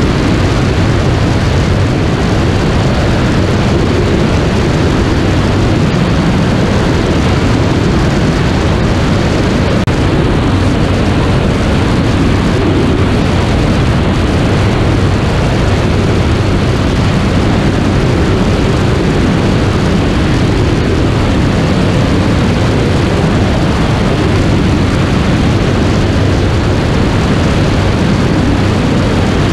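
Steady drone of a Sonex light aircraft's propeller engine in cruise flight, heard from a camera mounted outside on the airframe. Heavy rushing wind on the microphone runs through it.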